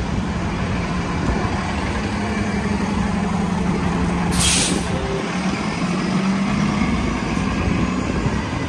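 Transit bus engine running steadily, with a short hiss of air brakes about four and a half seconds in.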